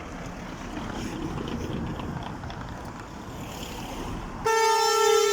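Wind and traffic noise, then a passing truck's horn starts about four and a half seconds in: one loud, steady blast.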